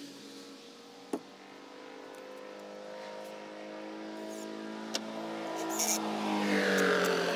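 A car or truck engine passing on a nearby road, growing steadily louder and peaking near the end with a slight drop in pitch as it goes by. Two sharp knocks, about a second in and about five seconds in.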